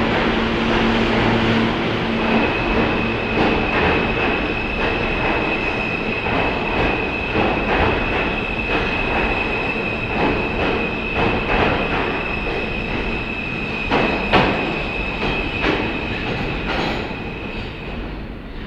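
R160 subway train pulling out and running past on the platform track: a loud rumble with repeated sharp clacks of wheels over rail joints and a steady high-pitched tone held through most of the pass. A low hum sounds for the first couple of seconds, and the noise eases off near the end as the last car leaves.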